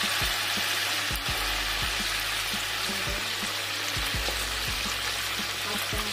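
Raw chicken pieces frying in hot oil in a pan, a steady loud sizzle.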